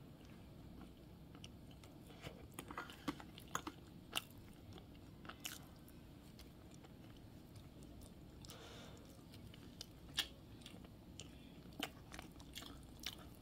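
Quiet eating sounds: someone chewing pieces of gochujang braised potato, with scattered sharp clicks of a metal fork against a plastic food container.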